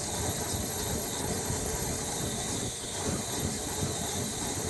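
1986 Chevy Silverado's 350 small-block V8 running steadily after being primed with gas poured into the carburetor, with a rapid low-pitched pulsing and a hiss. The owner takes the way it runs as a sign that the spark plug gaps, set at .050, are a tad too big.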